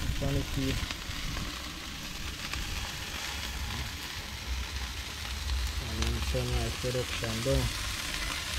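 Jerk chicken sizzling on the grate of a barrel grill over a fire, a steady hiss. Faint voices come through briefly at the start and again about six seconds in.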